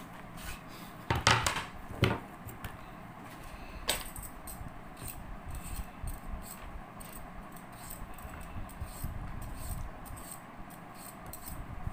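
Light metallic clinking and jangling, with two sharp clatters about one and two seconds in, a single click near four seconds, then faint scattered ticks.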